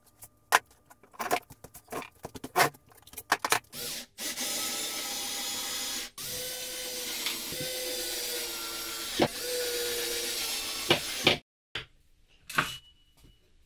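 Clatter and knocks of wooden and metal machine parts being handled, then a cordless drill running steadily for about seven seconds, stopping briefly once partway through.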